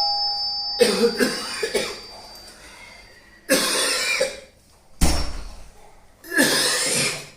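A person coughing in four separate rough bouts, while a doorbell chime dies away over the first two seconds.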